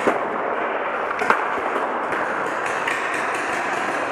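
Two sharp shots or hits from a skirmish game, one right at the start and a louder one about a second later, over a steady rushing noise.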